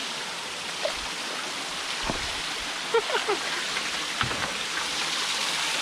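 Shallow mountain stream running and splashing over rocks below a small cascade, a steady rushing hiss, with a few soft knocks.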